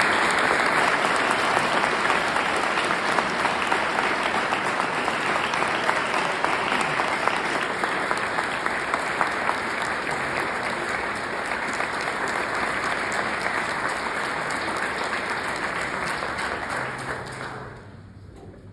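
Audience applauding, loudest at the start and slowly dying away until it stops near the end.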